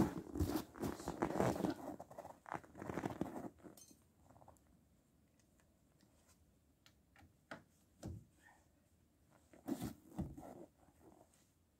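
Footsteps crunching in snow with clothing rustle for the first three seconds or so, then scattered soft clicks and scrapes of a socket wrench being fitted to the bolts at a Chevrolet Aveo's front wheel hub, with a couple of louder knocks about eight and ten seconds in.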